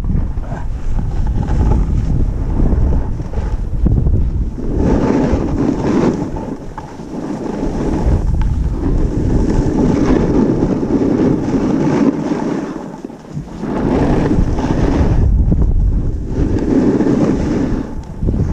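Wind rushing over an action camera's microphone while riding down a groomed ski slope, mixed with the hiss of a snowboard sliding over snow; the noise swells and fades several times as the board turns.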